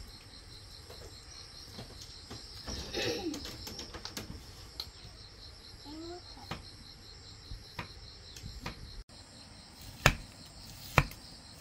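An insect, cricket-like, trilling steadily with a high, rapidly pulsing note. A child's brief faint vocal sounds come through twice, and two sharp knocks near the end are the loudest sounds.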